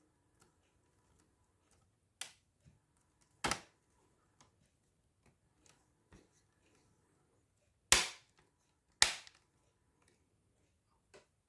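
Sharp plastic clicks and knocks from a laptop's bottom case cover being fitted and pressed into place: two lighter clicks, then two loud snaps about a second apart near the end.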